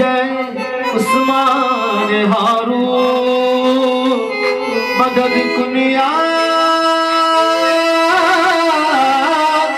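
Qawwali music: tabla and electronic keyboard playing under a male voice holding long, ornamented sung notes between lines of the song.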